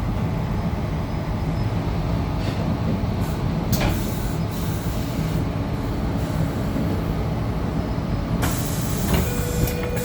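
Steady low rumble and hum inside a Tangara electric train carriage, with a couple of faint clicks.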